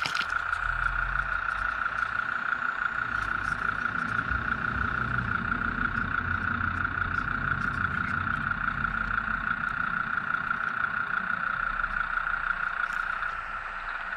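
Steady high whine of a radio-controlled CAT compact track loader's hydraulic pump and motors as it drives and works its bucket, with a low, shifting rumble beneath. Gravel rattles out of its bucket into a dumper's skip right at the start, and the whine drops a little near the end.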